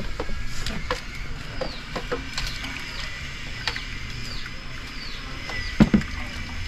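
Star apple punch poured from a plastic jug through a mesh strainer into a steel pot, with light clicks and knocks of the jug and strainer and a sharp double knock about six seconds in. A few short falling chirps sound over it.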